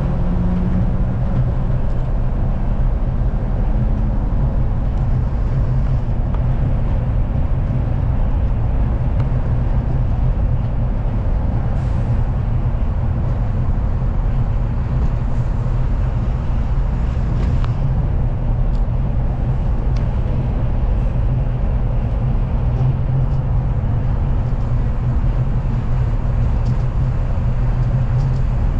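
Kanazawa Seaside Line rubber-tyred automated train running along its concrete guideway, heard from inside the car as a steady low running noise. A faint whine rises slightly in the first few seconds.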